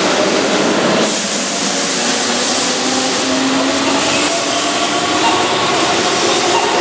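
Keihan electric commuter train pulling out of a station and accelerating. Its traction motors hum, rising slowly in pitch, over the steady rush of wheels on rail, which grows louder about a second in.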